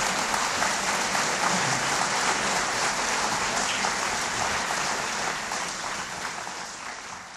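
Audience applause: many hands clapping in a dense, steady patter that fades away over the last two seconds or so.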